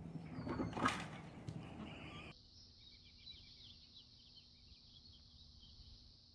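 Outdoor ambience: a short noisy rustle-like burst about a second in, then after an abrupt cut, many small birds chirping over a steady hiss.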